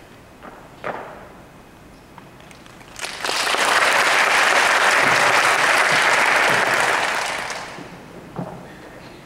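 Audience applauding for about five seconds: it starts suddenly about three seconds in and dies away near the end. A few faint knocks come before and after it.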